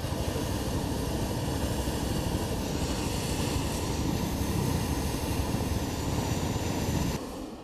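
Hot-air balloon's propane burner firing, a steady roar that starts suddenly and cuts off about seven seconds in.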